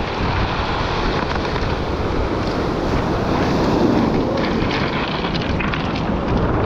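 Wind buffeting the microphone over the steady rush of surf breaking on a cobble beach, with a few faint clacks of rounded stones shifting underfoot.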